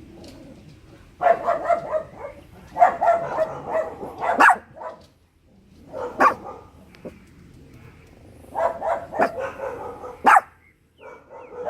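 Dogs barking in repeated short bouts with pauses between them, alert barking set off by noise from the neighbours.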